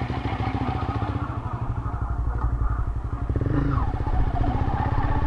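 An engine running with a steady, rapid throb, growing a little louder toward the end.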